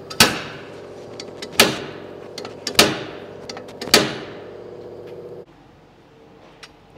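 Slide hammer with a hub-puller attachment on a car's front wheel hub, struck four times, about one stroke every 1.2 seconds: sharp metallic clanks that ring briefly, pulling the hub out of the steering knuckle. A steady hum underneath stops about five and a half seconds in.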